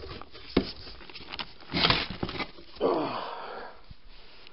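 Knocks and clatter of a steel wheel hub and bearing being handled and worked loose, with a loud scraping rustle near the middle and a short vocal sound falling in pitch a little after.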